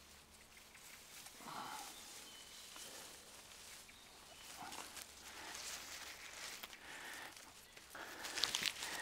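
Soft rustling and crackling of bundles of fresh green grass blades being handled and twisted into rope, loudest near the end.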